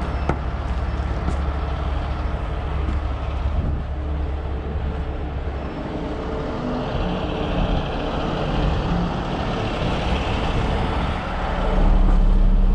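Heavy rotator tow truck's diesel engine running steadily, with its hydraulic system working the outriggers. A faint higher whine joins in about six seconds in, and the low engine drone gets louder near the end.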